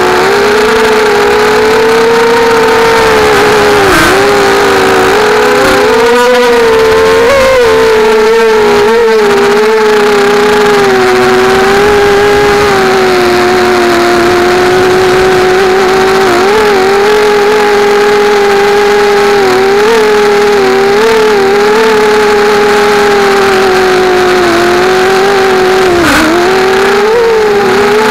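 Brushless motors and propellers of a 250-size FPV mini quadcopter whining steadily in flight, the pitch wavering and briefly dipping and rising a few times with throttle changes, heard close up through the onboard camera.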